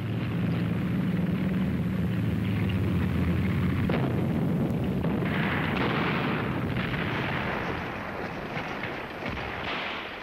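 Deep, steady engine rumble of a tank column on the move. About five seconds in it gives way to a rougher, noisier clatter that fades somewhat near the end.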